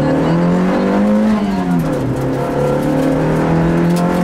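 Rally car's engine heard from inside the cabin, pulling hard with its pitch rising. About a second and a half in, the pitch falls sharply, then the engine pulls up again and runs on at a steady high pitch.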